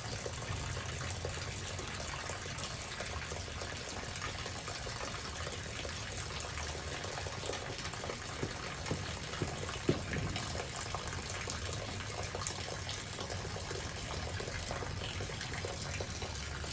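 Steady rush of rain and running water as a thunderstorm passes, with a few faint taps about eight to ten seconds in.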